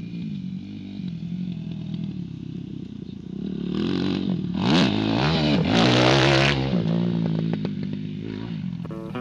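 Dirt bike engine revving up and down as it rides through a rhythm section of jumps. Several quick rises and falls in pitch in the middle are the loudest part, then it settles back to a lower run.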